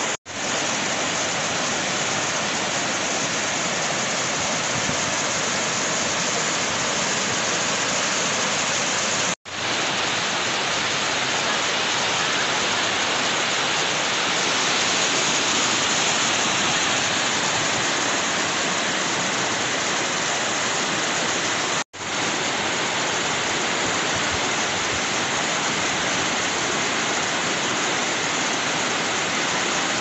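Waterfall: white water cascading over bare rock into a pool, a steady, even rushing of water. It cuts out for a split second three times, near the start, about nine seconds in and about 22 seconds in, where shots are joined.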